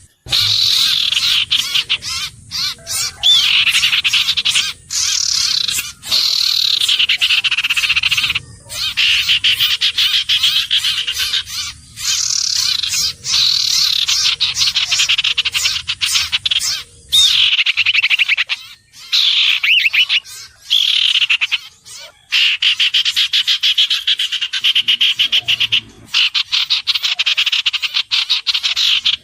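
An iora calling: a near-continuous rapid rattling trill with falling slurred whistles every few seconds, broken by a few brief pauses.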